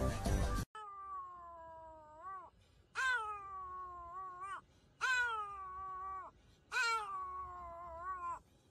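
Music cuts off under a second in, then a Pomeranian howls four times in the back seat of a car. Each howl is long and high, sliding down in pitch and ending with a short upward wobble.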